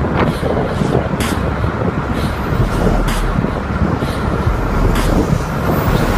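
Steady engine, tyre and wind noise of cars driving along a road.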